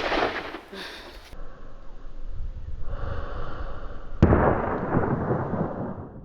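A hunting rifle fires once about four seconds in, and the report rolls away in a long echo.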